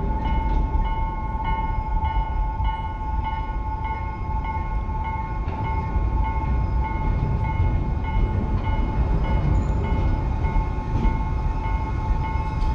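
Railway level crossing warning bell ringing continuously, a steady tone with a repeating beat of about two strokes a second, over a low rumble.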